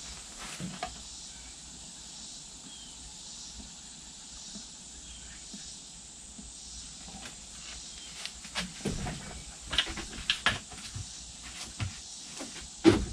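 Faint steady hiss, then from about halfway on a scatter of sharp knocks and clicks of plastic jugs and measuring cups being handled and set down while two-part flotation foam is poured out, with one louder knock near the end.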